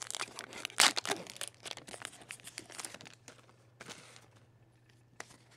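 Pokémon trading card booster pack wrappers being torn open and crinkled: a dense crackle for the first three seconds or so, loudest about a second in, then only a few faint scattered rustles.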